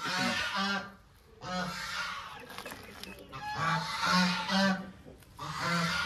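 Domestic fowl calling over and over: clusters of short, pitched calls, with brief gaps about a second in and again near the end. The birds are calling for their feed.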